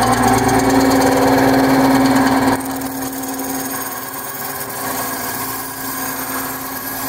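Small benchtop bandsaw running with a steady hum while its blade cuts into a balsa wood block. The sound drops abruptly to a lower level about two and a half seconds in.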